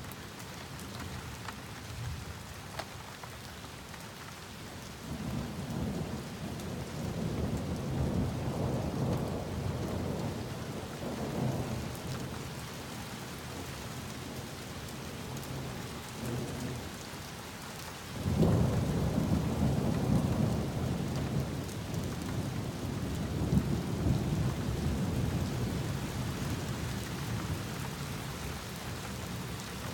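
Rain falling steadily during a thunderstorm, with thunder: a long rolling rumble starting about five seconds in, then a sudden louder clap a little past halfway that rumbles on for several seconds.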